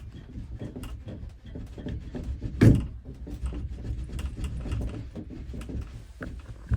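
Irregular metallic clicks, taps and knocks of hand tools working on a Symmons shower valve as it is taken apart, with one louder knock about two and a half seconds in.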